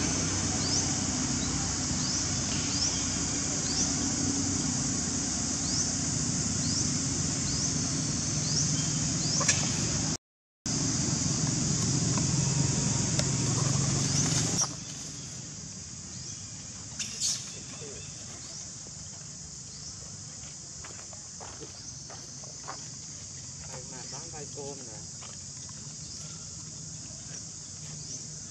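Outdoor ambience dominated by a steady high-pitched insect drone with a low hum under it. It drops out briefly about ten seconds in and becomes much quieter after about fifteen seconds, leaving faint insect sound and scattered soft clicks.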